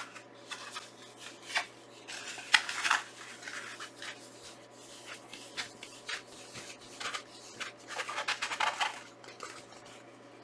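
A large rolled paper poster being unrolled and flattened by hand, the paper rustling and crackling irregularly, with louder crackles about two and a half seconds in and again near eight seconds.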